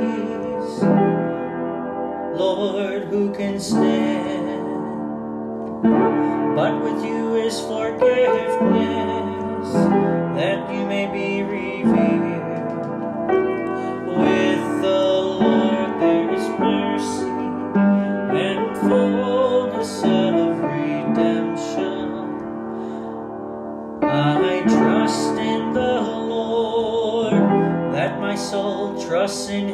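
Piano playing a slow, hymn-like accompaniment, with a new chord or note struck every second or two.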